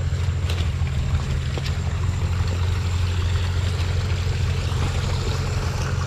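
Small mountain-fed stream running steadily, a continuous rush of water with a strong low rumble underneath.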